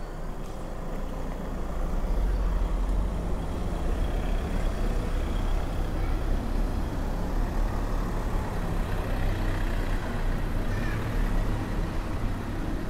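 Motor vehicle engine running with a steady low rumble that grows louder about two seconds in, over general street noise.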